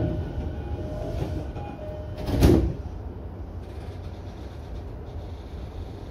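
Sliding doors of a stopped E233-series commuter train closing with a single loud thud about two and a half seconds in. It sits over the train's steady low hum, with a few faint short tones just before.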